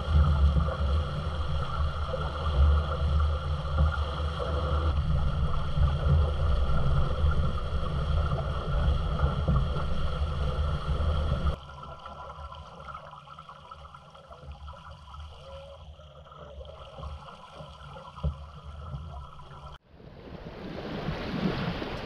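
Wind rumbling on the microphone over water washing along a small sailboat's hull. The sound drops abruptly to a quieter wash about halfway through, then near the end gives way to a rising hiss of water rushing past the hull.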